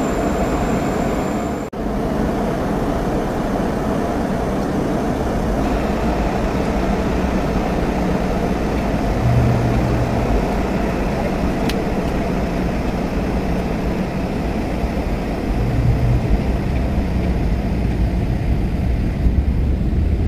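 Steady in-flight cabin noise of a Boeing 717: rushing airflow and the hum of its two rear-mounted Rolls-Royce BR715 turbofans, heard from inside the cabin, with a brief dip about two seconds in.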